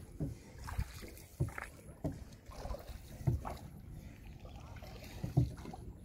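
Small wooden boat moving through calm water, with low knocks and splashes of water against the hull at uneven intervals of about a second, the loudest about three and five seconds in.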